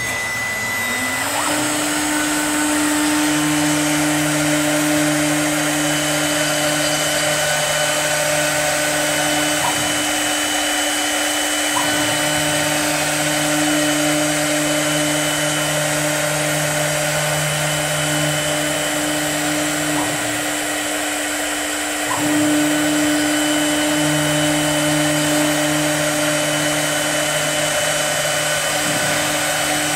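CNC wood lathe's milling spindle motor and toothed cutter disc spinning up and running with a steady hum while milling a wooden baluster. A lower drone comes and goes in three long stretches, with small clicks between them.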